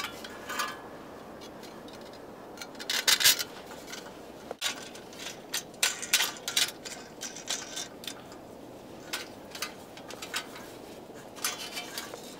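Scattered sharp clicks and short rattles of handled objects over a steady hiss, with the loudest clusters about three and six seconds in.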